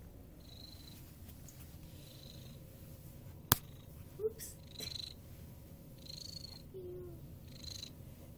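Domestic cat purring steadily while being stroked, with a single sharp click about three and a half seconds in, the loudest sound.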